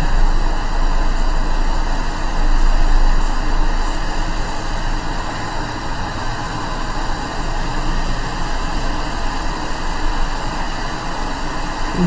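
Quick 861 hot air rework station blowing at full airflow (set to 100 at 400 degrees), a steady rushing of air over a circuit board as it melts the solder under a charging-port connector.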